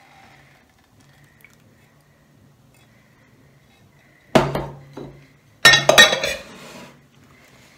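Glass and stainless-steel mixing bowls clinking and clattering: a sharp ringing knock about four seconds in, a smaller one just after, then a rattling clatter of several quick knocks a second later.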